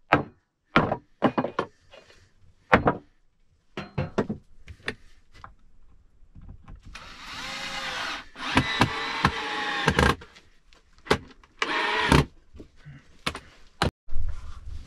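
A run of sharp knocks and clacks from objects being handled, then a few seconds of scraping with a wavering squeak, and a shorter scrape near the end.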